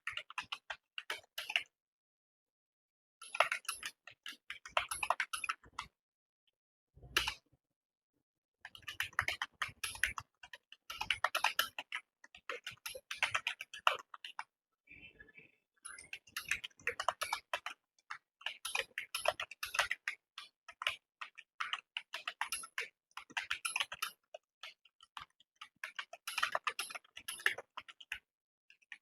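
Computer keyboard typing: rapid runs of keystrokes broken by a few short pauses of a second or two.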